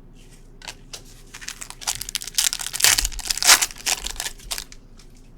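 Trading-card pack wrapper being torn open and crinkled in the hands: a run of crackles and rips lasting about three seconds, loudest around the middle.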